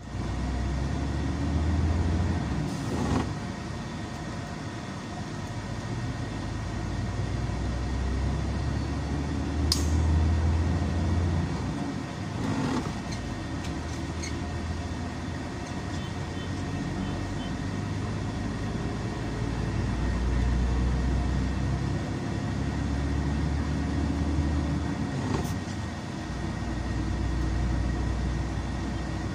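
Engine and road rumble heard from inside a moving bus, a deep drone that swells and eases as it drives, with a faint steady high whine and a few sharp knocks or rattles.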